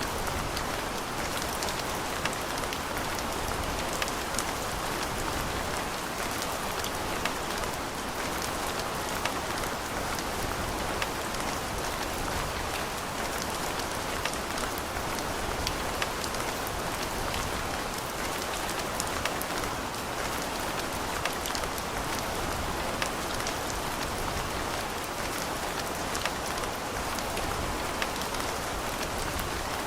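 Steady rain falling and pattering on surfaces, with many scattered individual drop ticks over a constant hiss.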